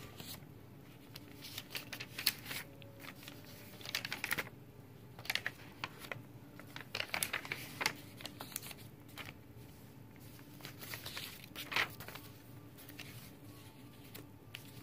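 Paper pages of a handmade junk journal (ledger, catalog and book pages) being turned and handled, crinkling and rustling in irregular crisp clusters.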